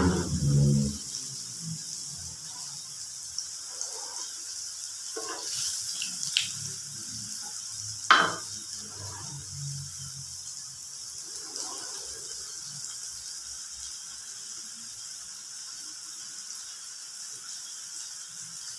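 Flour-coated chicken pieces frying in hot oil in a frying pan, a steady high sizzle. A low droning hum stops about a second in, and a few light clinks follow, the loudest about eight seconds in.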